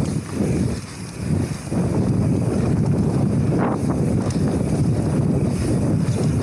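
Wind buffeting the action camera's microphone over the rumble of mountain bike tyres rolling fast on a dirt trail, with one sharper clack a little past halfway.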